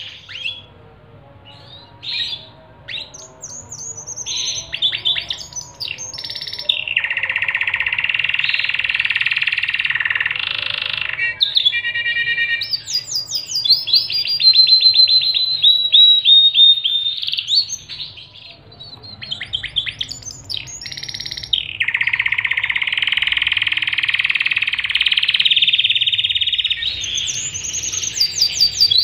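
Pied domestic canary singing a long, varied song of fast trills and repeated chirps, with a sustained buzzing roll about a quarter of the way in and another about three-quarters in.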